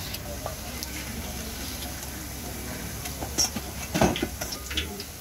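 Fafda strips of gram-flour dough deep-frying in a wide kadhai of hot oil, sizzling steadily over a low rumble, with a sharp knock about four seconds in.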